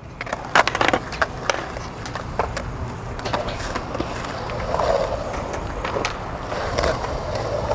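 Skateboard wheels rolling on concrete, a steady rolling roar with scattered sharp clacks and knocks of the board hitting the concrete, several of them close together in the first second and a half.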